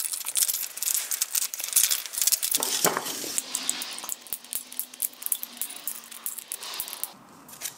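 3D-printed plastic adapters being handled, clicking and scraping against one another in a rapid run of small sharp clicks and scratches, which die down near the end.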